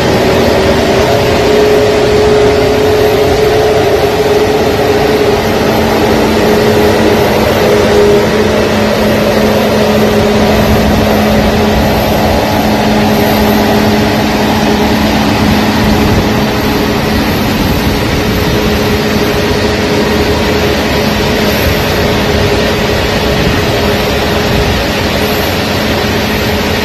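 Aircraft engines running steadily as a plane taxis: a loud, steady rush with a steady low hum.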